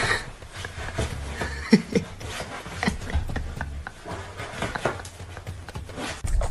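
A fluffy pet scrabbling and rubbing against a sofa while stuck, with a few short animal cries about two seconds in.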